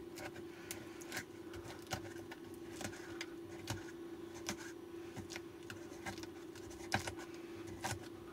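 A hand pick scraping and clicking at an e-bike battery pack's metal casing and the mess packed inside it: irregular small scratches and clicks, a few sharper ones, over a steady low hum.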